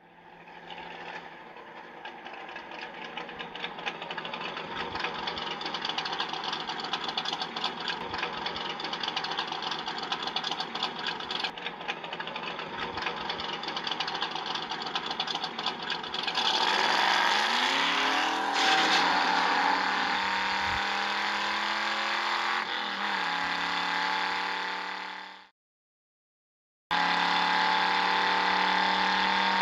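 Car engine sound effect: a steady engine note that builds up, then revs with the pitch rising and falling about two-thirds of the way through. It cuts off abruptly and starts again after a short gap.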